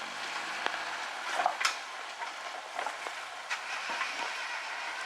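Suzuki Jimny Sierra crawling over rocks at low engine speed under a steady hiss, with several sharp knocks and scrapes as it works over the rocks, the loudest about a second and a half in. The knocks are typical of the rear differential catching on the rock.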